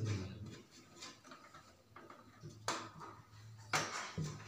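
Handling knocks and ticks as a flexible aluminium exhaust duct is worked onto the top of a kitchen chimney hood: scattered light taps with two sharper knocks in the second half, over a faint low hum.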